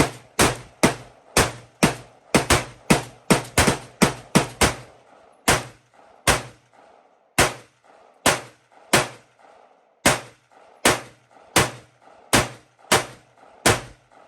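Gunshots from a semi-automatic firearm fired shot after shot, about 25 in all, each crack followed by a short echo. They come rapidly, two to three a second, for the first few seconds, then slow to roughly one a second before stopping near the end.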